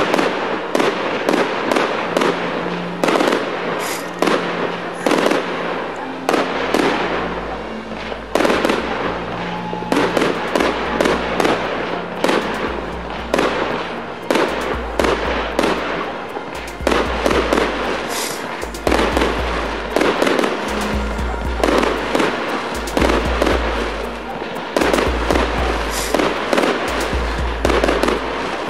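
Aerial fireworks from a display battery firing in quick succession, sharp bangs and crackling bursts coming a few times a second without a break.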